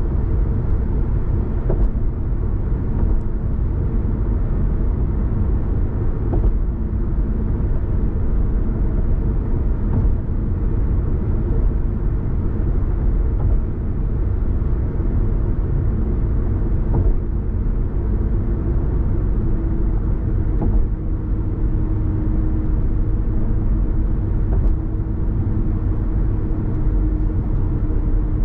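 A car driving, its engine and tyre noise a steady low rumble. A steady low hum comes in over the last third.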